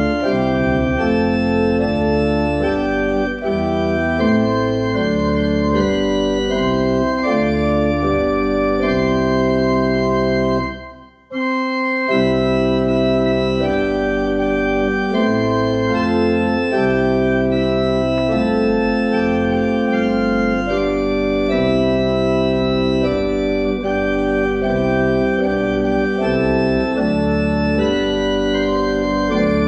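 Church organ playing a hymn tune in full held chords over a moving bass line. It stops briefly about eleven seconds in between verses, then goes on with the next verse.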